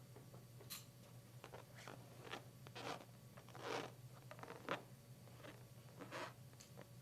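Foley sound effects made by hand: a string of short, irregular crunching and rustling noises, the loudest a little under four seconds in and again a second later.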